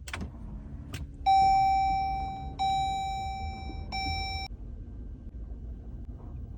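Warning chime of a 2023 Jeep Grand Cherokee 4xe, sounding three times about a second and a half apart. Each tone rings and fades, and the third is cut short. Two short clicks come before the first chime, and a low steady hum runs underneath.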